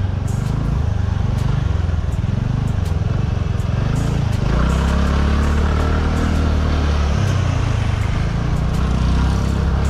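Motor scooter engine at low speed, its note rising and falling as the throttle is worked, then running at a steadier, stronger note from about halfway through.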